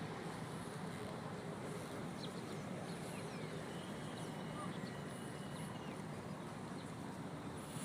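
Steady city background ambience: a continuous murmur of distant voices and traffic, with a few short high chirps over it.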